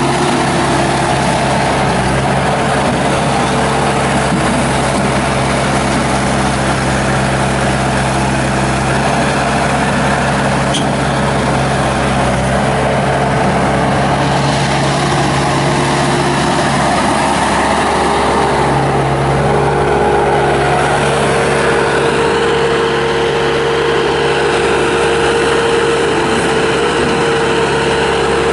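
Bobcat S250 skid steer's Kubota turbo diesel engine running steadily under throttle; its pitch dips briefly and picks up again about two-thirds of the way through.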